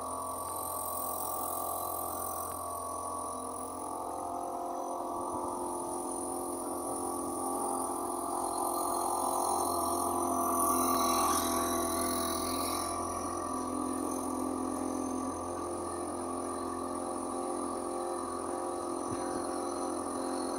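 A small river cruiser's engine running steadily at slow cruising speed: a constant drone with a high hiss over it. The hiss swells for a couple of seconds about ten seconds in.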